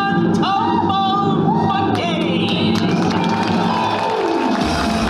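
Upbeat stage-show music with voices singing short rising calls. About four seconds in, a falling glide leads into a heavy bass beat.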